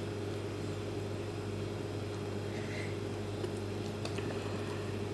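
Steady low hum of a kitchen appliance or fan, with a few faint soft ticks as hands press dough on a marble board.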